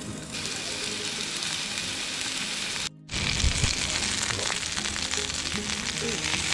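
Food sizzling and spitting in a hot pan over the camp stove or fire. There is a short break about three seconds in.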